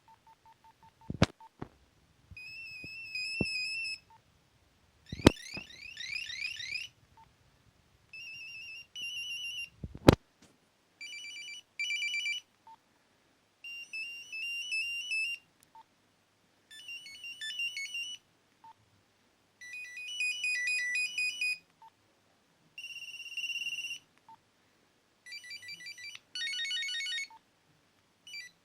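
Nokia 3110 (NHE-8) mobile phone playing its built-in monophonic ringtones one after another, about ten short snippets of a second or two each. A short single beep falls in most of the gaps between tunes, and three sharp loud clicks come in the first ten seconds.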